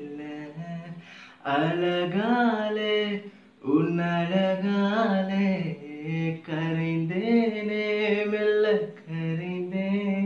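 A man singing solo and unaccompanied, holding long notes that bend in pitch, in phrases with short breaths between them.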